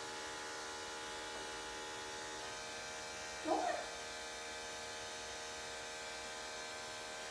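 Electric clippers running steadily with an even buzzing hum. A brief voice-like sound comes about three and a half seconds in.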